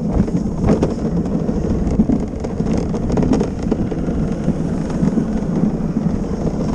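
Luge cart's wheels rumbling steadily over a paved track at speed, with a few short knocks.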